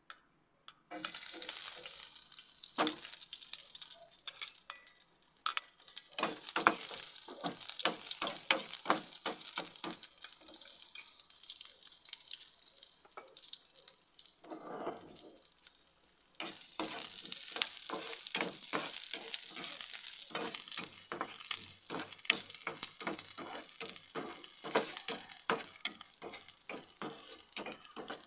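Sliced red onion and garlic frying in hot oil in a nonstick pan: a sizzle full of crackles that starts suddenly about a second in, when the onion hits the oil. It dies down briefly about halfway through, then picks up again as the pieces are stirred with a spatula.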